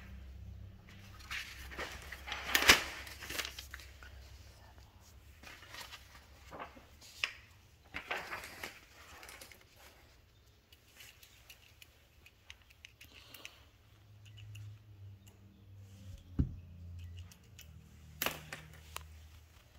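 Loose paper being handled: rustling and crinkling with a few sharp snaps, the loudest about two and a half seconds in, over a low hum.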